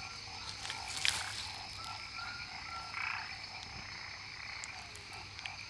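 Frog chorus: a steady, rapid croaking that goes on throughout, with a few short high chirps about two seconds in and one sharp tick about a second in.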